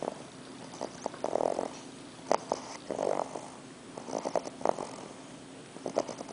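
English bulldog puppy snoring in his sleep: about four snores, each a burst of quick fluttering rasps, coming every one and a half to two seconds.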